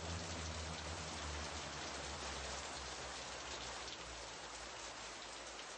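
Steady, rain-like hiss, with a low hum dying away over the first three seconds.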